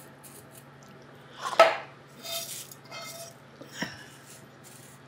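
Cookware clinks sharply against a glass baking dish about a second and a half in, with a short ring, followed by the dry crackle of buttered cornflakes being pressed down by hand and a lighter knock near the end.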